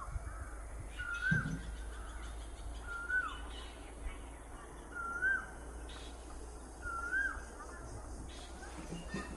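A bird repeating one short whistled note, rising then dipping, about every two seconds.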